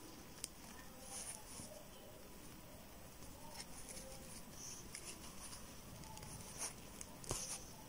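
Faint rustling of yarn drawn through crochet stitches with a yarn needle while the loose end is woven in, with a few light clicks, the sharpest near the end.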